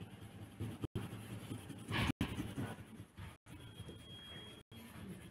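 Faint scratching of a coloured pencil on paper as a drawing is shaded in, in small irregular strokes.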